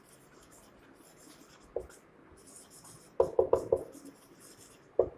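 Felt-tip marker scratching and squeaking faintly on a whiteboard in short strokes as words are written. There are a few short knocks and a quick run of taps about three seconds in.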